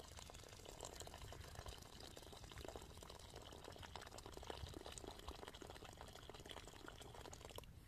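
Water poured in a thin stream from a kettle into a metal bowl: a faint, steady trickling splash.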